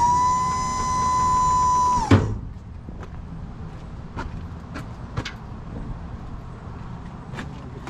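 A cordless power tool's electric motor spinning up to a steady whine and running freely for about two seconds, then cutting off abruptly with a knock. A few light metal clinks follow.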